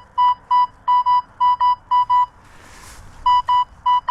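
Metal detector's speaker beeping a steady mid-pitched tone again and again as the coil is swept back and forth over a strong buried target, about three or four short beeps a second, with a pause of about a second past the middle.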